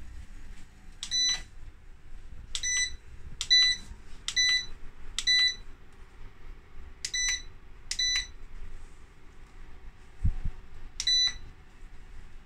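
Tefal dehumidifier's control-panel beeper giving eight short, high beeps at irregular intervals as its touch buttons are pressed. A single dull knock comes just before the last beep.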